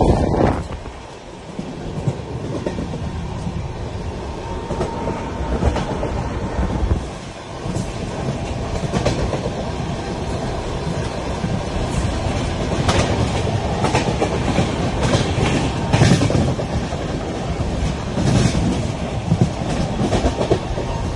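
Indian Railways passenger train running at speed, heard from beside the coach: a steady rumble of wheels on the track and rushing air. Sharp clicks come now and then as the wheels cross rail joints.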